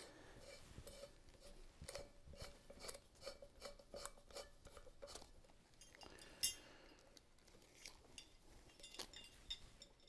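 Faint clicks and light metal taps from handling a ceiling fan motor housing and its wires while the downrod is threaded in by hand, with one sharper click about six and a half seconds in.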